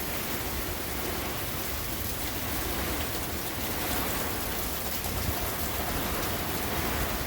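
Hurricane rain and wind: a steady rushing of heavy rain with a deep rumble underneath.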